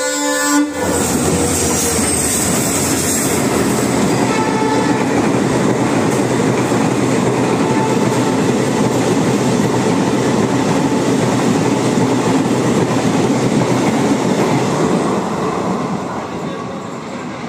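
Passenger train running through a station at speed. A locomotive horn cuts off under a second in, and then the loud, steady noise of the coaches rushing past on the rails takes over. The noise eases off near the end as the train's tail goes by.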